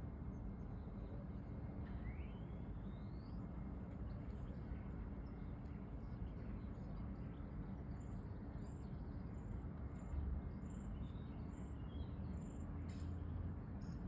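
Steady low outdoor rumble of city background noise with faint bird calls over it. One call rises about two seconds in, and a run of short, high chirps with a few lower calls comes in the second half.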